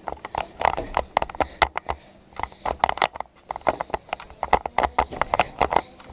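Rapid, irregular knocks, clicks and rustling from movement and handling close to the microphone.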